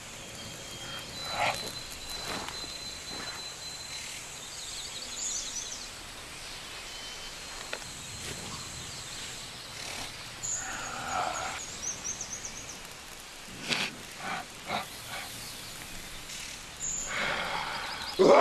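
Outdoor woodland ambience with birds chirping in short high trills, a steady faint background hiss, and a few scattered soft knocks about a second in and again around two thirds of the way through.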